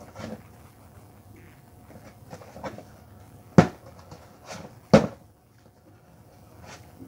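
Things being handled and set down by hand: light clicks and knocks, with two sharp knocks, the loudest, about a second and a half apart past the middle.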